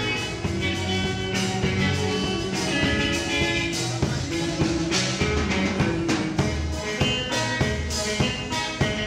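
Band music for dancing, with guitar over a steady drum beat.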